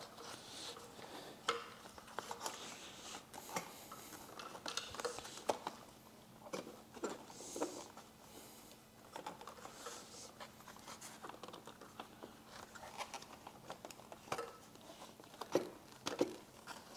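Faint handling noises as a small plastic tray is pushed back into a Harley-Davidson fairing and clipped in place: scattered light clicks, taps and rustling of plastic and wiring, with a few sharper clicks near the end.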